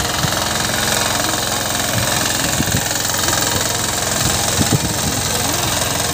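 Walk-behind power tiller's small engine running steadily under load while its rotary tines dig through soil, with a few light knocks along the way.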